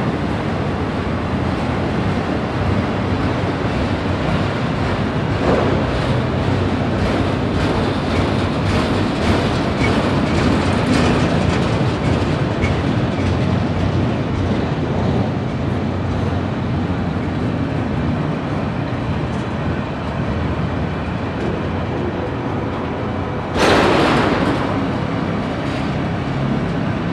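Freight train of autorack cars rolling past close by: steady rumble and clatter of steel wheels on the rails. A sudden loud bang comes near the end and dies away over a second or two.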